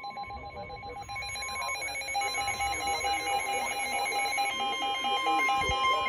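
NOAA weather radio sounding its warning alert: a steady tone near 1 kHz with a pulsing, repeating beep pattern over it, growing louder. It is the alarm that precedes a severe thunderstorm warning broadcast.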